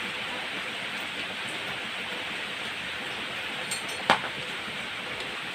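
Steady hiss with one sharp click about four seconds in.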